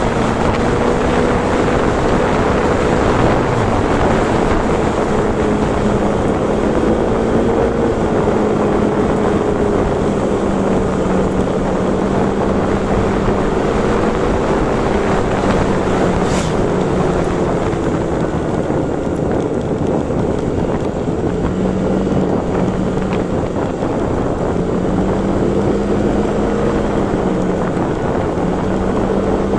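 Vehicle engine running steadily while driving, its note drifting a little up and down, under heavy wind noise on the microphone.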